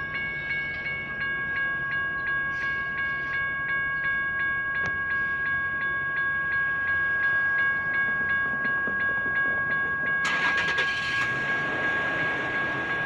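General Signals Type 1 electronic crossing bells ringing steadily, about three strokes a second, as the crossing gates rise at the end of the activation. A brief rush of noise cuts in about ten seconds in.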